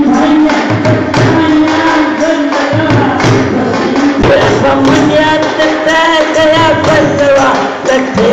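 A male voice sings a Punjabi folk song through a PA system, accompanied by a dhol drum struck in a steady rhythm.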